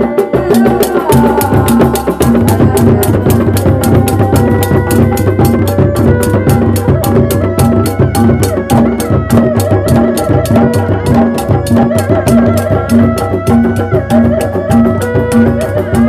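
Sundanese reak music: a set of four dogdog drums beating a fast interlocking rhythm, with a low drum note about twice a second. Over it a terompet plays a wavering melody.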